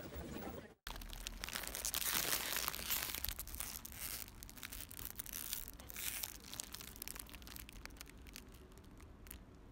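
A plastic bag crinkling and rustling as it is carried, loudest about two to three seconds in and growing fainter toward the end.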